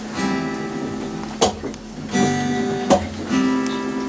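Acoustic guitar strumming the opening chords of a song, with ringing chords and a sharp strummed accent about every one and a half seconds.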